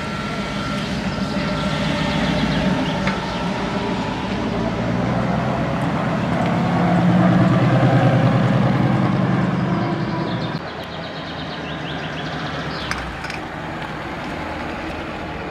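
Vintage cars driving slowly past one after another, engines running at low speed. The engine sound swells to its loudest about seven to ten seconds in as a green late-1930s Ford coupe passes close by, then drops off suddenly.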